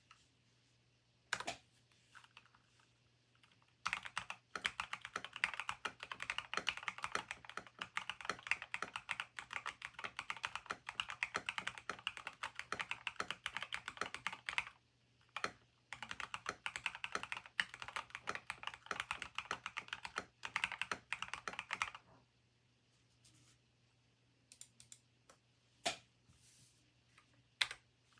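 Typing on a Keychron mechanical keyboard as a sound test: two long stretches of fast, continuous key clacking with a short pause between, then a few scattered single keystrokes near the end.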